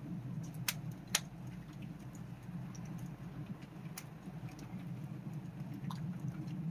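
Small campfire crackling, with irregular sharp pops (the loudest about a second in and again at about four seconds) over a steady low rumble.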